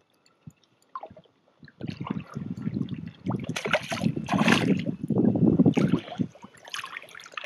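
Hooked speckled trout thrashing and splashing at the water's surface as it is brought in close, with water sloshing around it. The splashing starts about two seconds in, is heaviest in the middle and dies down near the end.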